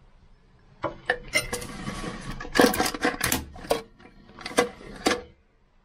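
Plastic clicks and scraping from a Fluidmaster toilet fill valve being adjusted by hand, its height shaft turned and locked in place. A string of sharp clicks, with a short scraping slide about a second and a half in.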